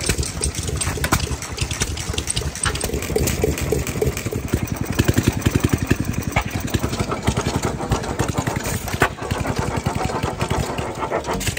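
Antique single-cylinder stationary gas engines running, a rapid even chugging of firing strokes with several engines going at once.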